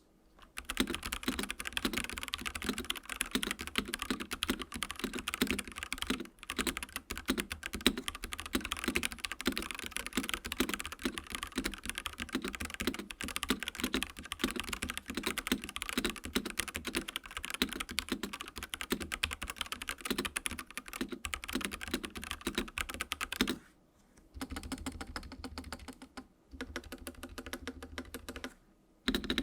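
Fast typing on a stock, out-of-the-box Dareu A87 hot-swap mechanical keyboard with its factory Sky Blue switches and stock keycaps: a dense run of key clicks. The typing pauses briefly a few seconds in and again about two-thirds of the way through, then goes on more softly near the end.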